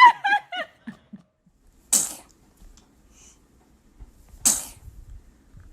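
A baby sneezes twice, two short hissy sneezes about two and a half seconds apart. Before them, a high-pitched squealing voice dies away about a second in.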